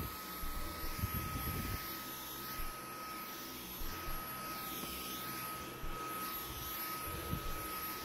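Dyson V11 Absolute cordless stick vacuum running steadily with a whine from its motor as the motorised brush head is pushed back and forth over carpet. A few low bumps come about a second in and again near the end.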